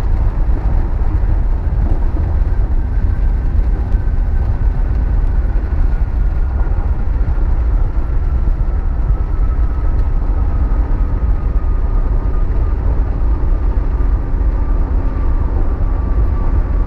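Ford Lightning pickup driving at high speed, recorded through a GoPro case padded with foam against wind: a steady, loud low rumble of engine and road noise with little wind hiss. A faint whine slowly falls in pitch throughout.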